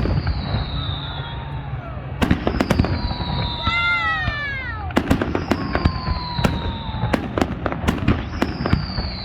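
Fireworks display going off: many sharp bangs and crackling reports, with a falling whistle every few seconds.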